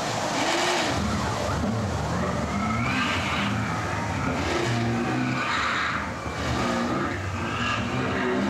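Harsh live noise music from an improvised electronics rig: a dense hiss with squealing tones that glide up and down and waver throughout.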